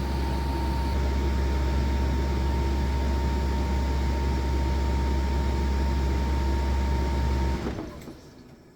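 EcoFlow Wave portable air conditioner running in cooling mode, a steady hum with a faint whine, then winding down and stopping about seven and a half seconds in as its battery runs flat.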